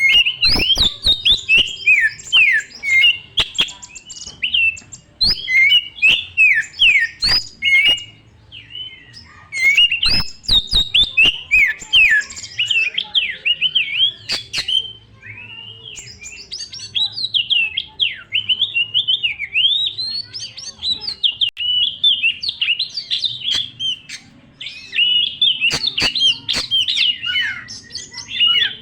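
Oriental magpie-robin (kacer) singing a long, varied song of quick rising and falling whistled phrases, with sharp clicks scattered through it. The singing is loudest and busiest at the start and again near the end.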